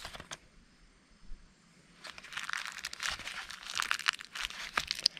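Cardboard and plastic packaging being torn open and crinkled by hand: after a quiet first couple of seconds, a run of crackling, rustling tears and crinkles.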